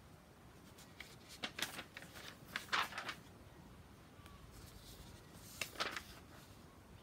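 Sheets of paper rustling as hand-held printed signs are handled and flipped, in several short bursts, the loudest about three seconds in and another near the end.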